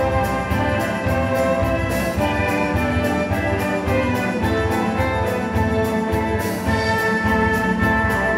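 Orchestra playing with a drum kit, brass carrying the melody over the strings while the drums keep a steady beat.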